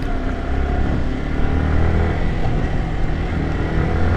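Yamaha R15 motorcycle's single-cylinder engine running at fairly steady revs while riding a dirt trail.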